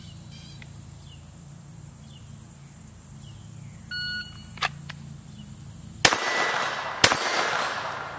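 A shot timer beeps once. About two seconds later a Glock 44 fires two .22 LR shots about a second apart from a holster draw. Each shot is followed by the ringing of a steel target hit.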